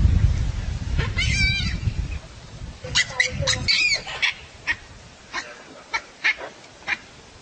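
Baboons calling: short sharp barks, one warbling call about a second in, a cluster around three to four seconds in, then single barks every half second or so. A low rumble runs under the first half and stops about halfway through.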